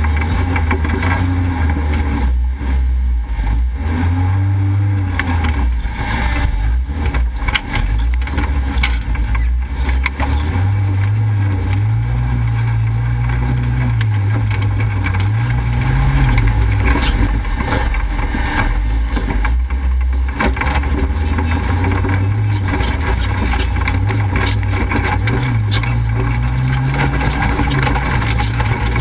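Off-road race vehicle's engine running hard under load, its pitch rising and falling with the throttle as it drives over rough ground, with knocks and rattles from the bumpy trail over it.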